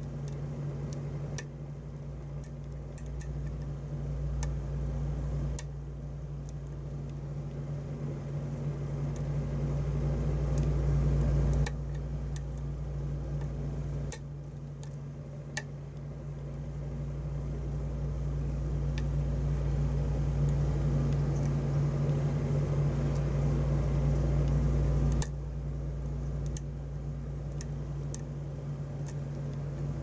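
Short hook pick and tension wrench working the pin stack of a challenge lock cylinder: scattered light metallic clicks and ticks as the pick probes for a security T-pin. Under them runs a steady low hum that steps up and down in level several times.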